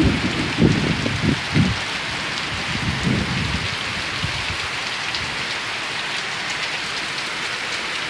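Heavy rain falling steadily, a downpour pattering on the ground, with a few low rumbles in the first three seconds.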